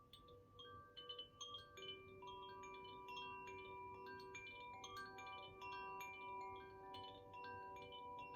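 Koshi chime in the Ignis (fire) tuning, swayed so its clapper keeps striking the tuned rods: a quiet, steady stream of light strikes whose clear notes ring on and overlap.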